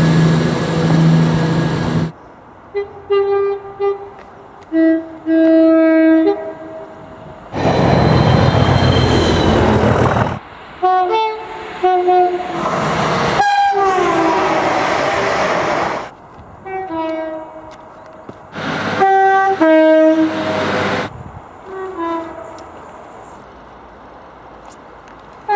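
A string of short train horn blasts, many of them two-tone horns sounding a high and a low note in turn. Between them are several stretches of loud rushing noise from trains going by.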